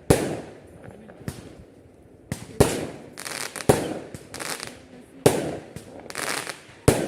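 Fireworks going off in a display: a series of sharp bangs about a second apart, five of them loud, each trailing off in a brief hiss.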